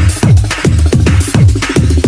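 Fast electronic dance music with a heavy, driving beat and deep bass notes that slide downward again and again.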